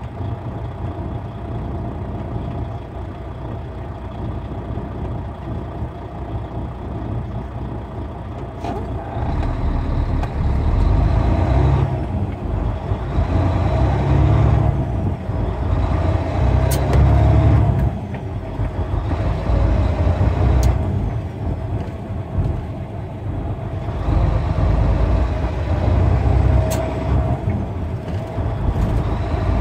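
Heavy truck's engine running with road noise while driving. The low rumble swells and eases several times from about a third of the way in, and a few sharp clicks stand out.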